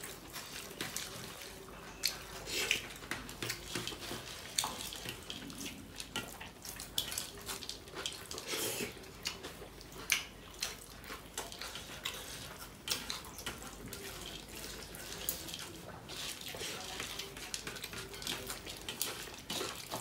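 Close-up eating sounds: wet squishing as fingers mix rice and curry by hand, with chewing and lip-smacking. They come as a dense, irregular run of small wet clicks.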